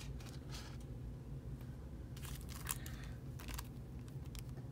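Faint rustling and crinkling of plastic wrap with a few light taps and clicks as trading cards and a plastic-sealed promo card are handled, over a low steady hum.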